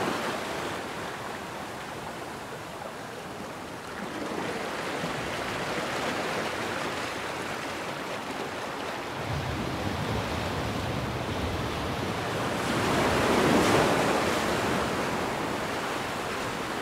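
Small sea waves breaking and washing onto a shallow shore in a steady wash, with one louder wave breaking about two-thirds of the way through.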